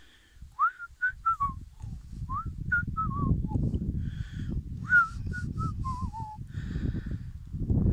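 A person whistling a short tune in three phrases, each opening with an upward slide and then stepping down in pitch, over a low rumble.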